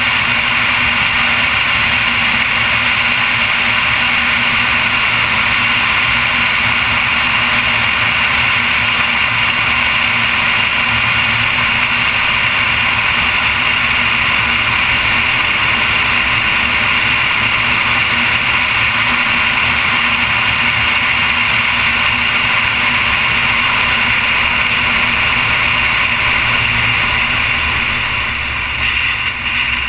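Noble M400's twin-turbo V6 cruising at a steady speed under a steady wash of road and wind noise, easing off slightly near the end.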